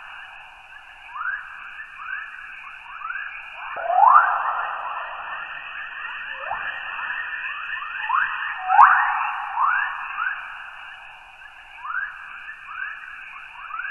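Spacecraft radio recording of Earth's electromagnetic 'chorus' waves, played as sound: a steady hiss crossed by many short rising chirps, a few every second and overlapping irregularly, with louder chirps about four and nine seconds in.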